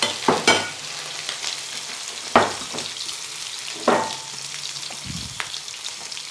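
Ravioli sizzling in melted butter in a frying pan, turned with a slotted spatula, with a few sharp clinks as the spatula meets the pan, the loudest about two and a half seconds in. The pasta is only being tossed in the butter, not fried.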